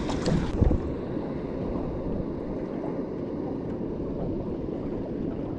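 Steady wind on the microphone and water lapping around a small boat at sea, with a brief knock under a second in.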